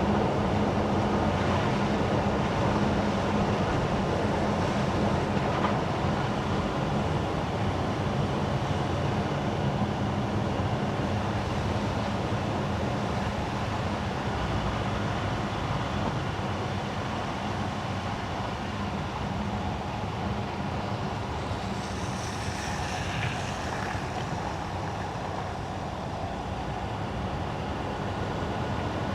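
Car driving on wet winter asphalt: a steady wash of tyre and road noise with a low engine hum, easing off slightly in the second half. A brief higher hiss comes in about three quarters of the way through.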